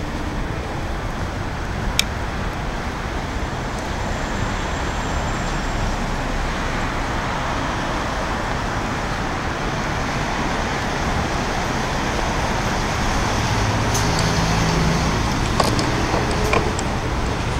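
Steady city traffic noise, with a few sharp clicks near the end.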